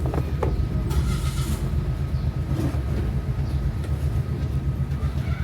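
A steady low mechanical hum, with a couple of sharp clicks near the start and a brief rustle about a second in.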